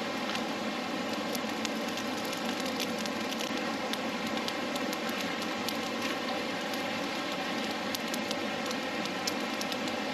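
Steady rushing of flowing stream water, with scattered small crackles and ticks from a campfire catching on paper bark and wet kindling.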